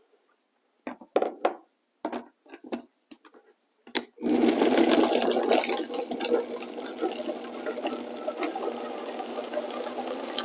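Vitamix blender blending grapes at high speed. The motor starts with a click about four seconds in and runs steadily, loudest at first and gradually quieter. Before it starts there are a few short knocks and clicks.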